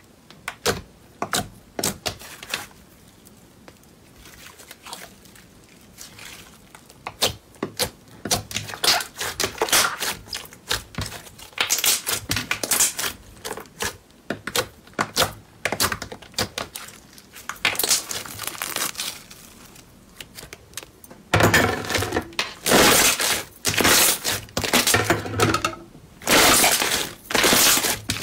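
Slime being pressed, folded and kneaded by hand, giving a run of wet clicks, squelches and small pops. The clicks are sparse at first and come thick and loud about three quarters of the way in as the slime is squeezed and stretched.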